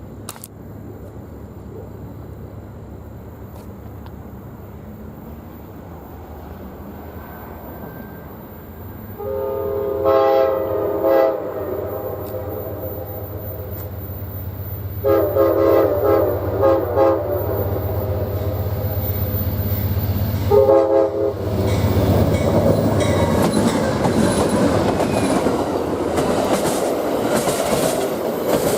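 Approaching train sounding its multi-tone horn in three blasts, two long and a short one, over the growing hum of its engine. It then passes close by with loud rumbling and clattering wheels.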